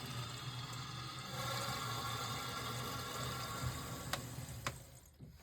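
Water running and hissing through a whole-house water filter housing and its pipes, dying away about four and a half seconds in, with two light clicks near the end.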